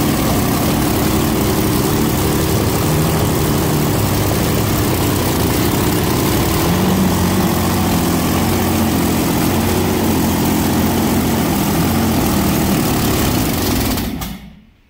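Rolls-Royce Meteor V12 petrol tank engine running on a test stand on its first start after restoration, with slight changes in engine speed. The sound falls away near the end.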